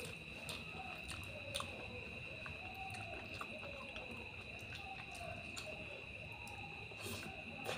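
Eating sounds: fingers working rice and curry on a plate, with chewing and short mouth clicks. A steady high-pitched whine runs underneath, with faint wavering tones behind it.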